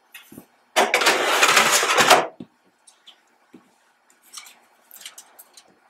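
Mistbuster 850 grease-trap impinger, a metal baffle filter, sliding into the metal rails at the bottom of the collector cabinet: a scraping metal-on-metal slide lasting about a second and a half, then a few light taps as it settles.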